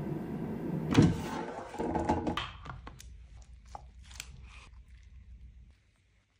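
An air fryer running with a steady fan noise, with a sharp thunk about a second in. The running noise stops about two and a half seconds in, and light scrapes and clicks follow as a metal spatula lifts a slice of frittata off parchment paper, fading out.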